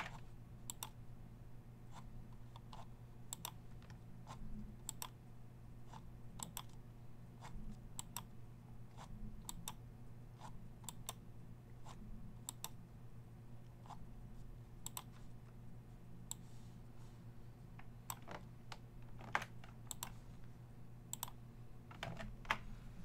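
Computer keyboard keys and mouse clicks, faint, coming at irregular intervals, over a steady low hum.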